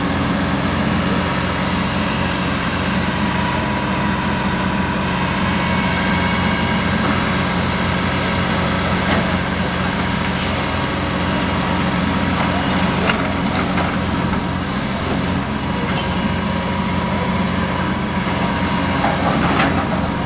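Heavy diesel engines of hydraulic excavators running steadily while they demolish a masonry building. Short clatters of breaking and falling debris come about nine seconds in, around thirteen seconds, and near the end.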